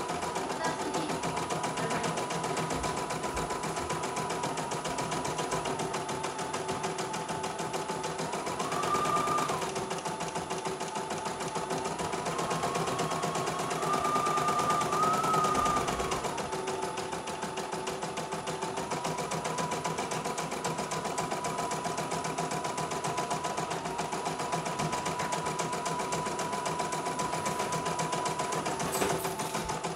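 CNY E900 portable embroidery machine stitching: a fast, steady needle chatter over a motor whine whose pitch steps up and down with the stitching speed, rising and getting louder about nine seconds in and again for a couple of seconds around the middle.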